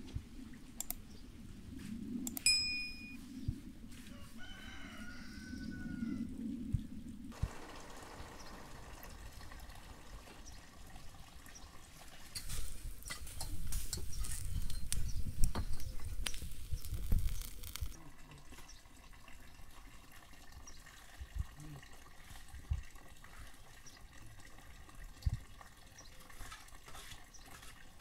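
A rooster crows once about four to six seconds in, over faint outdoor background. Later a louder stretch of rustling noise lasts about five seconds, and a few scattered knocks follow.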